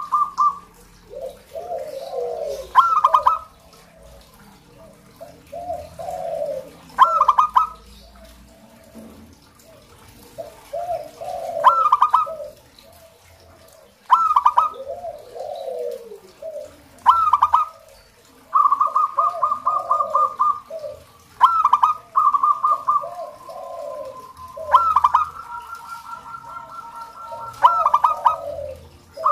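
Zebra doves (perkutut) singing: repeated cooing phrases every few seconds, each a fast stuttering run of high notes followed by lower rolling coos.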